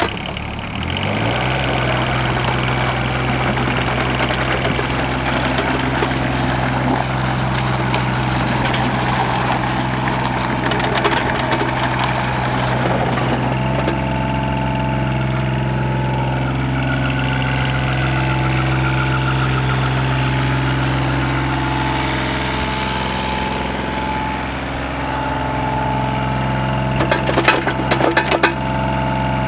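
Yanmar VIO25 mini excavator's 3TNV76 three-cylinder diesel running, picking up speed in the first second and then holding steady. A higher steady whine joins about halfway through, and a few sharp knocks come near the end.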